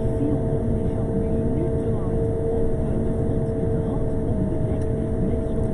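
Road sweeper driving along, its engine and machinery running with a steady low rumble and a constant hum on top.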